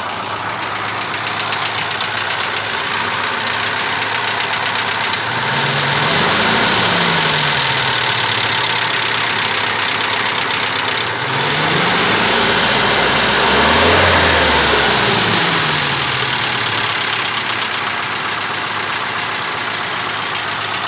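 ZMZ-406 four-cylinder petrol engine running with a knock, idling and revved up twice before settling back to idle. The owner cannot place the knock and suspects the hydraulic lash adjusters.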